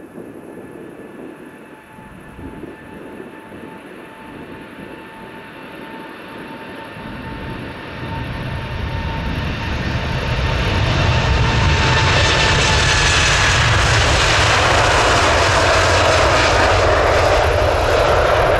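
Four-engine Boeing 747 freighter's jet engines at takeoff thrust during the takeoff roll and rotation. The sound grows much louder as the aircraft approaches and passes, with a high engine whine that drops in pitch as it goes by and a deep rumble that comes in from about eight seconds.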